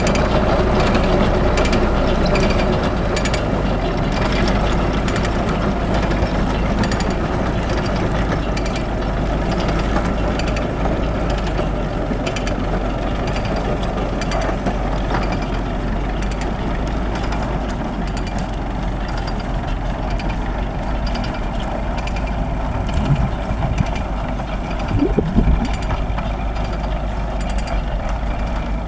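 Zetor 7011 tractor's diesel engine running steadily, with a fast mechanical clicking and rattling over it. There are a few louder knocks near the end.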